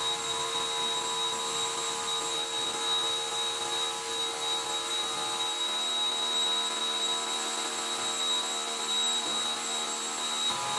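A steady electric machine hum with a high-pitched whine, holding an even level throughout, with a lower tone joining about halfway through.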